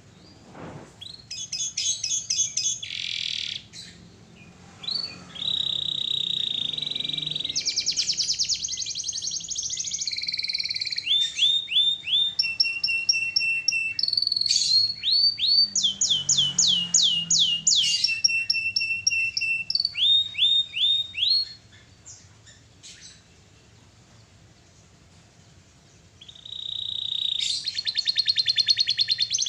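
Domestic canary singing: long phrases of fast trills made of rapidly repeated notes and quick pitch sweeps. The song stops for about four seconds near the end, then starts again with a new trill.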